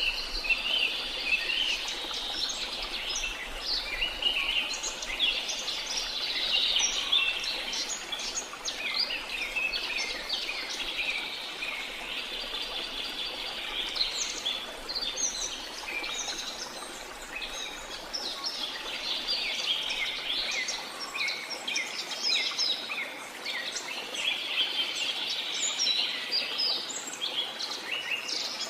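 Many birds chirping and calling at once, continuous and overlapping, over a steady rush of falling water.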